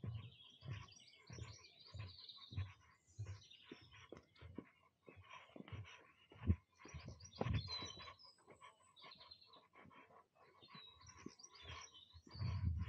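Small birds calling and singing, with soft footsteps thudding on wooden footbridge boards, about three steps every two seconds, in the first half.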